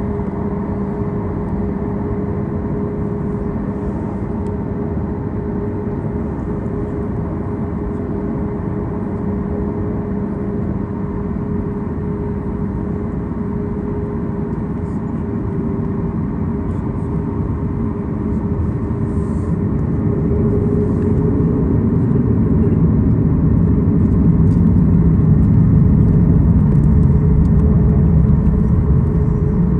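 Cabin noise of a Boeing 737 MAX 9 taxiing: its CFM LEAP-1B engines running near idle with a steady hum and a held tone, over the rumble of the rolling aircraft. The noise grows louder a little past the middle and stays up near the end.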